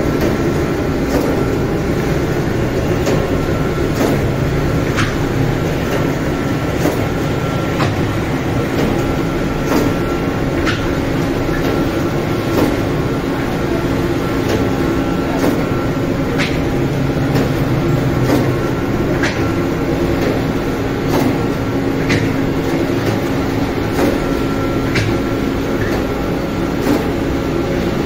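Bakery dough-sheeting machine running steadily, its rollers and chain conveyor making a constant mechanical hum. Sharp clicks and rattles come at irregular intervals, about one every second or two.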